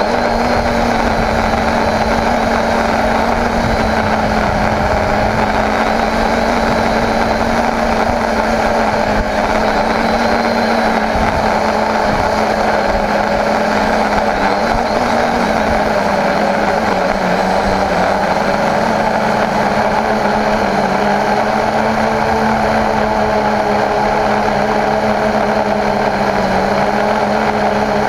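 Homemade quadcopter's electric motors and propellers running steadily, heard close up from the GoPro mounted on it: a loud, even whirring hum with a few held tones. About two-thirds of the way through, the tones shift in pitch as the motor speeds change.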